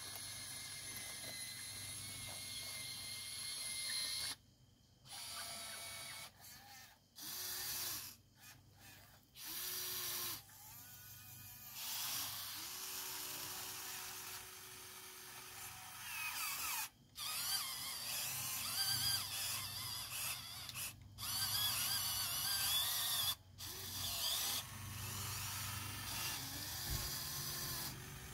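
Huina 1580 RC excavator's small electric motors and gearboxes whining as the boom, arm and bucket move, starting and stopping abruptly in short runs of a second or a few seconds.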